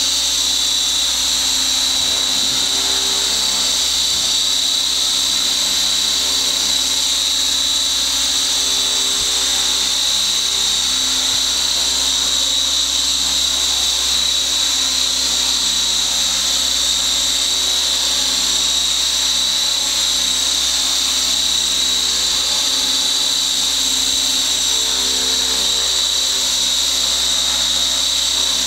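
Skyartec Wasp X3V flybarless electric RC helicopter hovering, its brushless motor and rotor giving a steady high-pitched whine.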